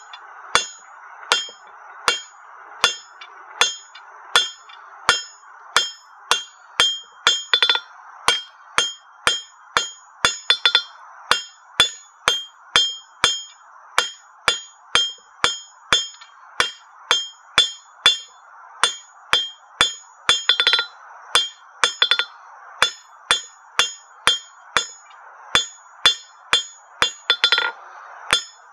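Hand hammer striking a hot half-inch square steel bar on an anvil in a steady rhythm of about two blows a second, drawing the bar out to a taper. Each blow gives a sharp metallic clink with a short ring, and a few ring on longer. A steady faint hiss sits underneath.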